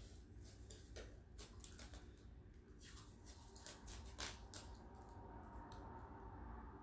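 Faint scattered clicks and light crinkles of fingers handling and opening a small fragrance oil bottle.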